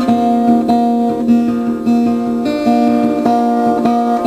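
Background music: an acoustic guitar playing, its notes picked at an even pace.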